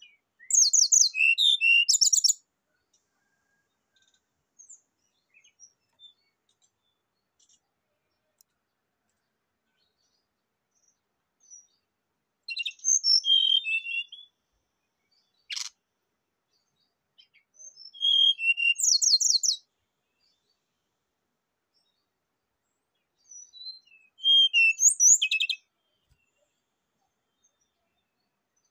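Brown-chested jungle flycatcher singing: four short high-pitched phrases of about two seconds each, mixing rapid trilled notes with clear whistles, separated by silent gaps. A single sharp tick falls about halfway through.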